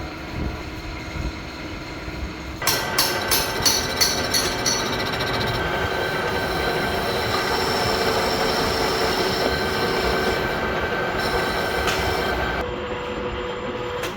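Metal lathe turning a conical slug: the machine hums, then about two and a half seconds in the tool engages with a quick run of ticks and settles into a steady cutting whine over a noisy rasp. The cut eases off near the end.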